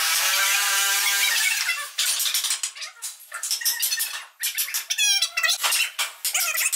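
Hand chisel scraping and paring wood out of a mortise in a hardwood stair piece. A long scraping squeal in the first two seconds gives way to a run of short, quick scraping cuts, with a high squeak that falls in pitch about five seconds in.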